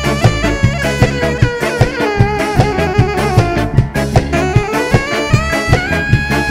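Ska song: a horn melody over a steady, driving drum beat.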